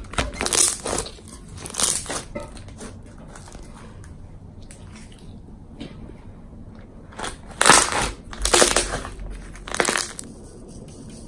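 Thick pink slime, full of sprinkles and charms, being stretched, pulled and squeezed by hand, making sticky squishing noises. These come in short bursts: a couple in the first two seconds, then a louder cluster about three-quarters of the way through.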